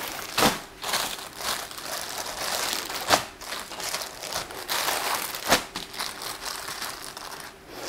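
Continuous crinkling and rustling as swimwear and its packaging are handled, with three sharper crackles: about half a second, three seconds and five and a half seconds in.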